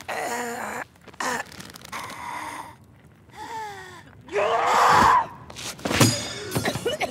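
Women gasping and grunting with effort in a physical struggle, with a loud burst of noise about four and a half seconds in and a sharp hit about six seconds in.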